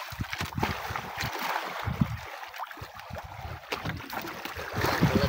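Wind buffeting the microphone in irregular gusts, with water sloshing and gurgling against the hull of a wooden outrigger fishing boat at sea.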